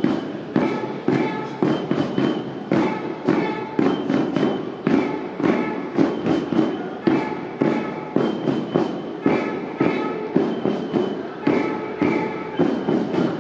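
Drums beaten in a steady marching rhythm, about two beats a second.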